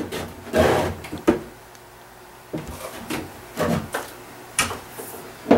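Handling of a ski waxing iron and wax bar: a few scattered short rubs and knocks, with a sharp click a little over a second in.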